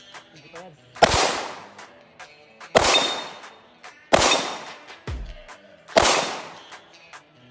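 Four single shots from an AR-15-style rifle fired at a slow, deliberate pace, each crack followed by a long fading echo. Fainter sharp cracks sound between them.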